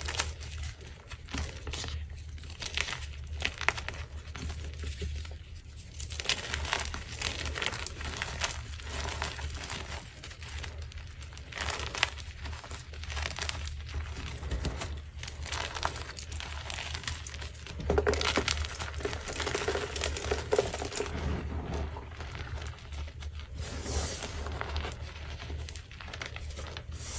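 Blocks of dyed gym chalk being crushed and crumbled by hand into powder: a continuous run of soft, close crunches and crackles, with a steady low hum underneath.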